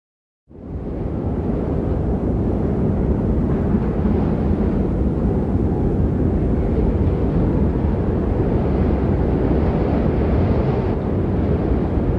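A loud, steady low rumbling noise that starts suddenly out of silence about half a second in.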